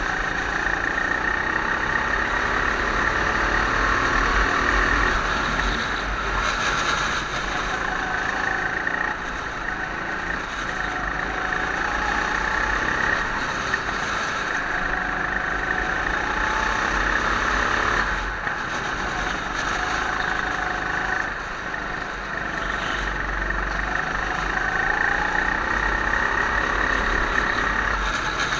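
Go-kart engine running hard from the driver's seat, its pitch and level rising and falling as the kart accelerates and eases off for the corners, with short dips in level several times.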